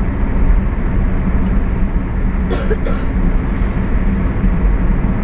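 Steady road noise of a moving vehicle: a constant low engine and road rumble, with two short sharp noises about two and a half to three seconds in.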